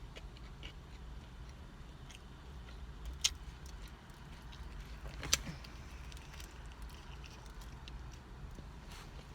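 A person quietly chewing a tuna salad sandwich, with small wet mouth clicks, over a low steady hum. Two sharper clicks stand out about three and five seconds in.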